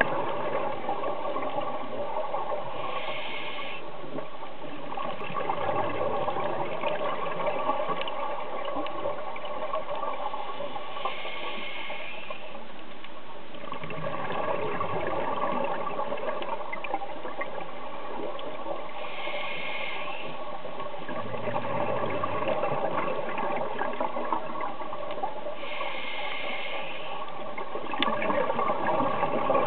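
A scuba diver's regular breathing heard underwater: about every eight seconds a short hiss of the regulator, then a rush of exhaled bubbles, over a steady wash of water noise.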